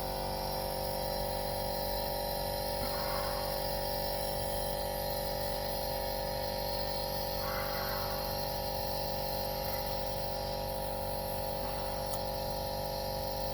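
Nebulizer air compressor running with a steady, even hum, with two brief soft hisses about three and seven and a half seconds in.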